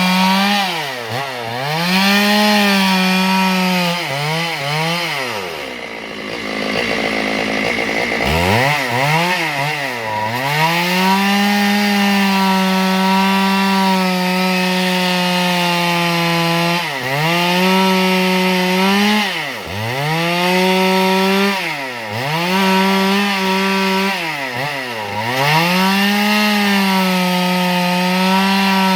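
Stihl MS 382 two-stroke chainsaw cutting dry eucalyptus at full throttle, loud and high-pitched. Its pitch dips sharply again and again as the chain bogs in the wood, then recovers. About six seconds in it drops to a low idle for a couple of seconds before revving back up.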